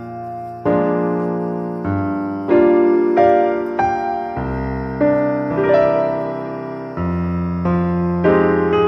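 Background piano music: slow chords struck roughly once a second, each ringing and fading before the next.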